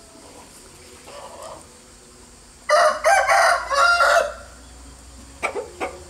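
A rooster crowing once, loud, a call of about a second and a half broken into several syllables, starting a little under halfway through. A few short, sharp calls follow near the end.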